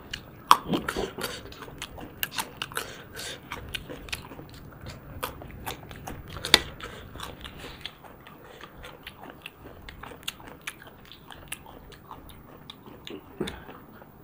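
Eating sounds of two people eating chicken curry, rice and roti with their hands: chewing and mouth noises with many sharp clicks, busiest in the first half.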